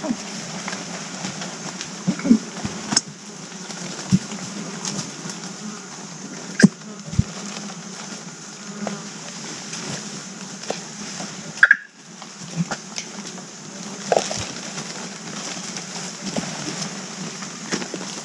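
Steady droning and buzzing of rainforest insects, with scattered snaps and rustles in the dry leaf litter as agile mangabeys move about on the forest floor, and a couple of short calls.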